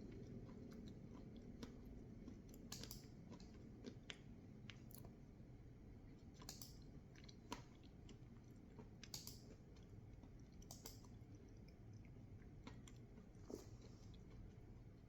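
Faint close-up chewing of crunchy food, with scattered crisp crunches a second or two apart.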